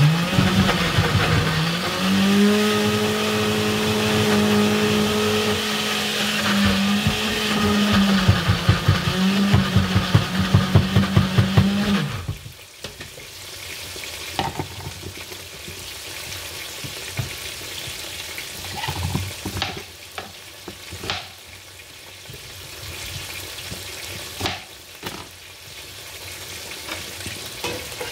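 Small electric countertop blender grinding dried chillies, fresh chillies and ginger into a spice paste. The motor hum rises a little as it gets up to speed, turns choppy in its last few seconds and stops about twelve seconds in. After that come clicks and knocks of the blender jar being handled, over a steady sizzle of chicken frying in oil.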